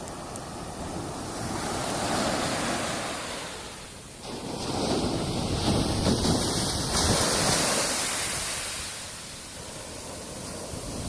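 Ocean surf washing onto a beach, with wind buffeting the microphone. The wash swells twice, a smaller surge about two seconds in and a bigger, longer one in the middle.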